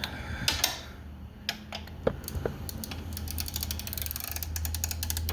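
Socket ratchet clicking on a motorcycle's rear shock bolt: a few separate clicks and knocks, then a fast run of clicks about three seconds in as the handle is swung back. A steady low hum of a space heater runs underneath.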